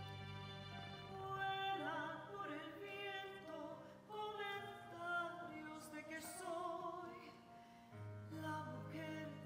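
A woman singing in an operatic style with wide vibrato over instrumental accompaniment with held notes and a low bass line. The singing enters about a second and a half in, and the bass drops away for a stretch and comes back near the end.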